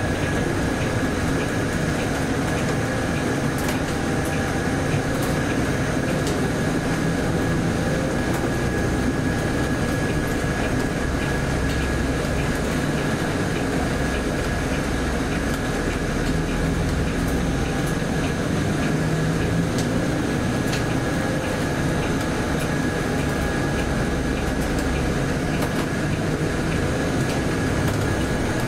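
Volvo B8RLE city bus under way, heard from inside the cabin: steady diesel engine and road rumble with scattered light rattles and clicks from the body and fittings, and a thin steady high whine throughout.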